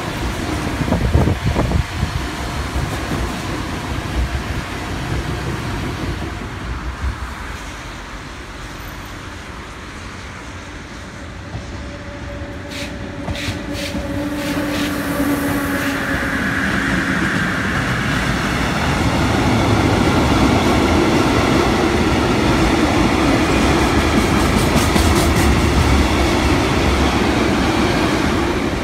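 Freight trains passing on the line. First a container train rolls by with its wheels clacking over rail joints. Then an SNCF BB 26000 'Sybic' electric locomotive with two diesels coupled behind draws its container wagons past. A steady tone and then a higher whine come in as it nears, and the wagons' wheels make a loud rumble and clatter, loudest in the second half.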